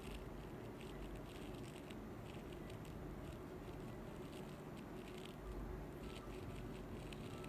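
Close-miked ear-cleaning tools working inside the ear canal: irregular soft crackles and scratchy clicks over a low steady hum, as the tool scrapes and loosens hardened earwax.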